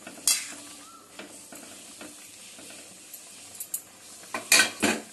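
A spoon stirring and scraping a simmering prawn curry in a metal kadai, with the curry sizzling steadily underneath. There is one sharp scrape about a third of a second in, and a louder run of scraping strokes near the end.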